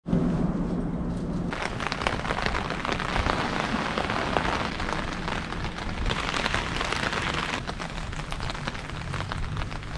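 Steady rain falling, with many close individual drops hitting wet surfaces.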